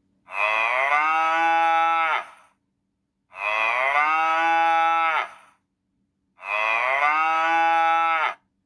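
Recorded cow mooing three times, each moo about two seconds long, the three calls identical in shape with short silences between them.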